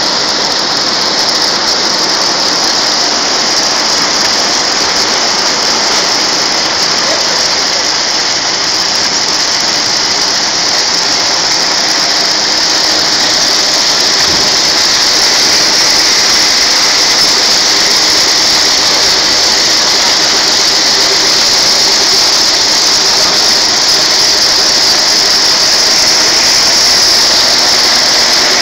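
Abrasive cloth slitting machine running, its rotary knives slitting a roll of abrasive cloth into narrow strips: a loud, steady, high-pitched hiss that grows slightly louder about halfway through.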